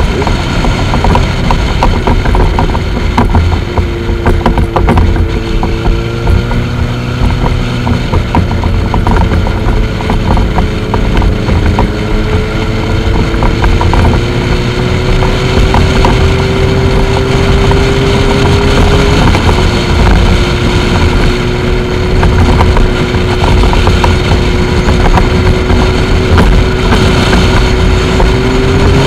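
Motorcycle engine running under way on a race track, with wind rushing over the helmet-mounted microphone. The engine tone climbs slowly, steps down suddenly about two-thirds through at a gear change, holds steady, then rises again near the end.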